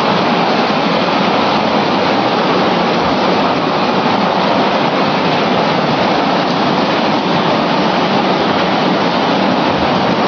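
Chicken-feet blanching machine running: a steady, even rushing noise from the machine and its steaming hot-water tank, with no breaks or distinct knocks.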